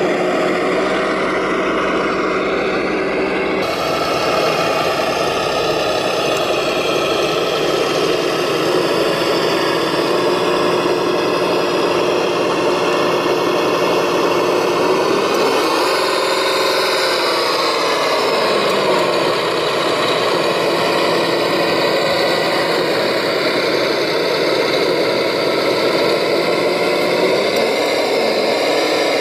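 Radio-controlled MB-trac model tractor running while it tows a loaded trailer through soil: a steady mechanical engine-like hum, shifting pitch a little about four seconds in and rising then falling in pitch around sixteen to nineteen seconds in.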